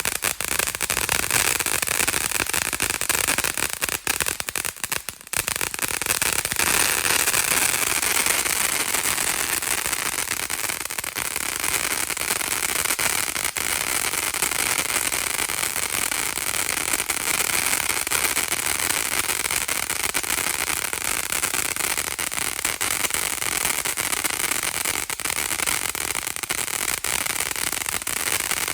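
TNT Wild Side finale fountain burning, giving a steady hiss of spraying sparks with dense crackling, and a brief lull about four to five seconds in.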